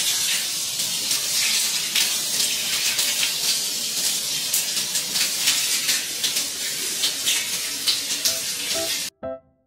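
Hot-spring water gushing from a tap into an empty tiled bathtub, a steady rushing splash on the tile floor. It cuts off abruptly near the end, where piano music comes in.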